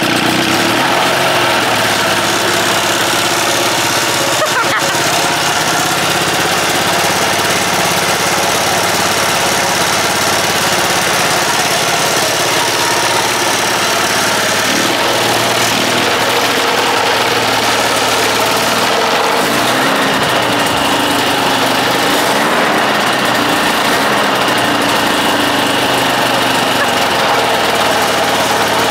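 Hirth 2703 two-stroke ultralight airplane engine running loud and steady, spinning its wooden propeller. Its pitch rises and falls a few times in the second half as the throttle is worked.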